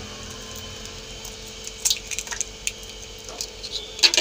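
Raw eggs being cracked and emptied into a steel bowl of spiced water: small shell taps and soft liquid drips and squelches, with a few sharper knocks near the end.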